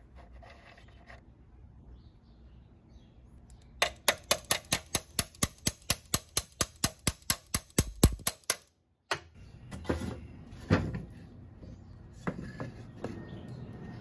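Hand ratchet clicking fast and evenly, about four or five clicks a second for some five seconds, as a bolt on the scooter's front end is loosened. A few separate knocks follow.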